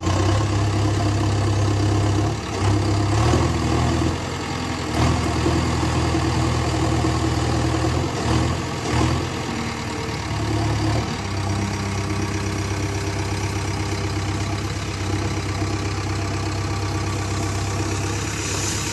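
Heavy diesel engine running, its note shifting several times in the first eleven seconds, then holding steady.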